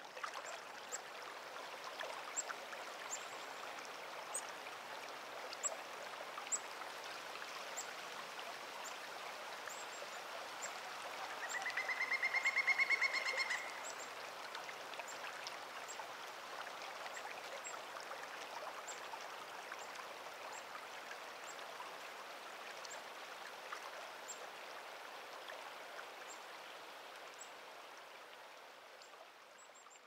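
Clark Fork River burbling steadily over stones, field-recorded, fading out near the end. About halfway through, a rapid pitched trill lasting about two seconds rises over the water.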